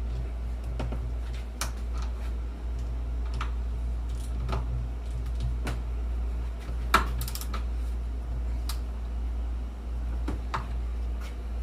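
Irregular light clicks and taps of hand tools on a battery cable's terminal end as its bolt is tightened, over a steady low hum.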